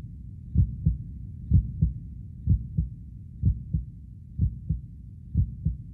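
Heartbeat sound effect: slow, low double thumps (lub-dub), about one pair a second.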